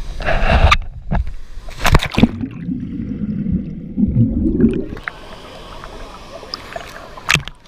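Water splashing and sloshing: two sharp splashes in the first two seconds, then a lower churning that dies down after about five seconds.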